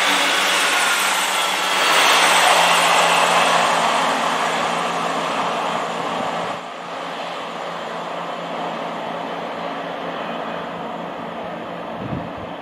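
Class 158 diesel multiple unit running past close by, a steady engine hum under rolling wheel and rail noise. About six and a half seconds in, the sound drops abruptly to the quieter, more distant noise of an approaching train, with a few low thumps of wind on the microphone near the end.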